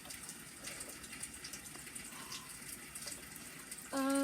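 Steady rushing of water. Near the end comes a short, slightly falling vocal sound, the loudest thing heard.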